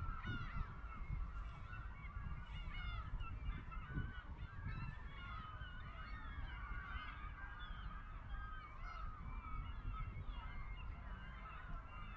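A large flock of birds calling without a break, many short calls overlapping, over a low steady rumble.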